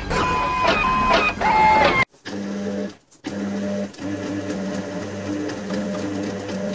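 A short bright tune cuts off about two seconds in. It gives way to a steady electric whirring, like a toy robot's motor, that runs in several stretches with brief breaks.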